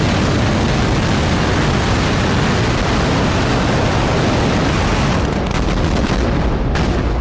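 Hundreds of small ground fireworks going off together: a continuous dense barrage of bangs that merges into one steady loud noise, with a few separate bangs standing out near the end.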